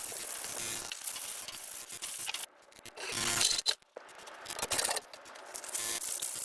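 Abrasive scraping and rubbing on a hammer during its restoration, in several separate spells with short breaks between them.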